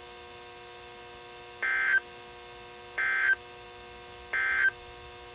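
Three short bursts of Emergency Alert System (SAME) digital data tones from NOAA Weather Radio, about a third of a second each and spaced roughly 1.3 s apart. Their shortness fits the end-of-message (NNNN) code that closes an alert broadcast. A steady hum from the receiver runs underneath.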